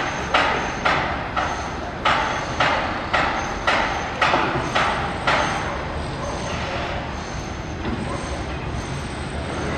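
Sharp knocks at a steady pace of about two a second, each dying away quickly, stopping about five seconds in. A steady background rumble runs underneath.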